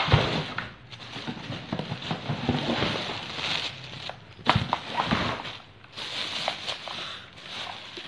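Plastic wrapping crinkling and cardboard rustling as a water heater is handled and pulled out of its box, with a few sharp knocks about halfway through.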